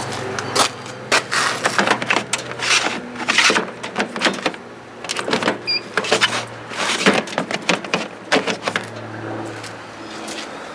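HP large-format inkjet plotter running with its covers off during its start-up cartridge check: a steady fan hum under a string of irregular mechanical clicks and clatters from its moving parts, which stop near the end and leave the hum.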